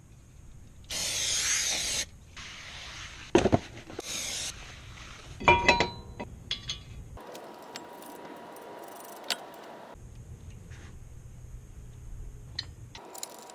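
Work on a car's front brakes: a hiss lasting about a second, a sharp knock, a second shorter hiss, then metal parts and tools clinking with a brief ringing, followed by lighter scattered clicks.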